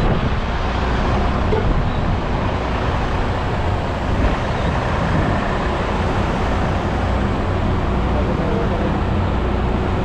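Heavy diesel trucks idling steadily, with a constant low rumble and faint voices in the background.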